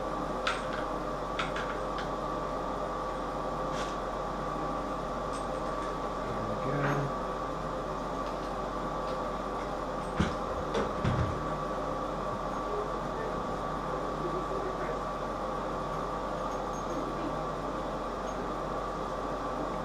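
Scattered small clicks and taps of plastic and metal bidet fittings being handled and fitted together by hand, with a short run of knocks about ten seconds in, over a steady background hum with a faint whine.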